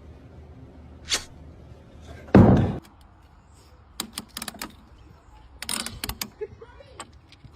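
A loud thump about two and a half seconds in, with a sharp click before it and a scatter of light knocks and clicks after.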